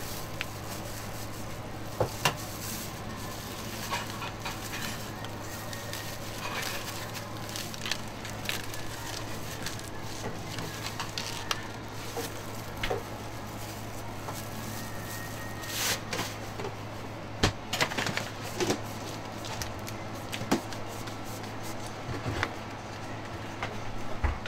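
Handling sounds of a crepe being folded and pushed into a paper cone: scattered light clicks, taps and paper rustles over a steady low hum.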